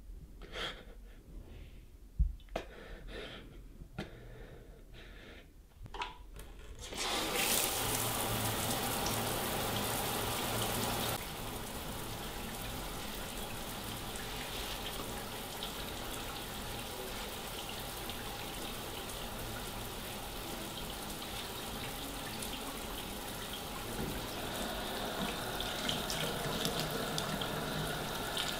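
Water running from a tap into a sink. It comes on about seven seconds in, runs louder for a few seconds, then settles into a steady flow. Before it there are a few short knocks and clicks.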